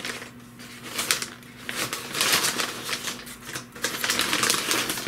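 White wrapping paper rustling and crinkling in irregular bursts as it is lifted out of a box and unfolded.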